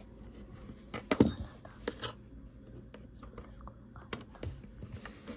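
Precision screwdriver and a slim metal tool clicking and tapping against the metal inner frame of an Apple USB SuperDrive while small screws are driven in. The loudest cluster of clicks comes about a second in, another follows about two seconds in, and a few lighter taps come near the end.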